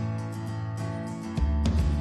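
Background music with guitar and a steady beat; the bass shifts to a deeper note about one and a half seconds in.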